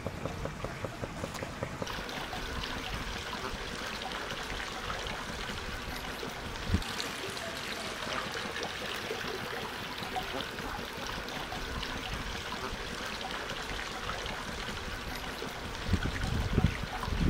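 Water running and trickling steadily into a backyard swimming pool, with a single knock about seven seconds in and a low rumble near the end.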